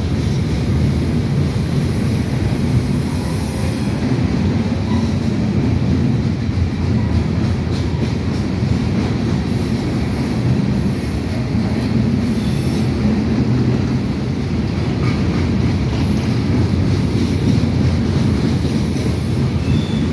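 Empty open-top hopper cars of a long freight train rolling past, their wheels on the rails making a steady, loud low rumble.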